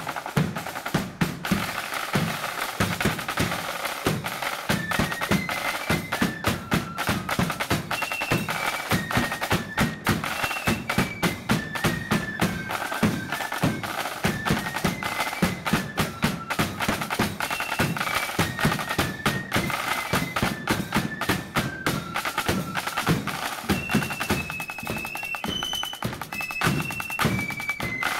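Marching flute band playing: rapid snare-drum rolls and strokes over a bass drum beat, with the flutes' high melody coming in about five seconds in.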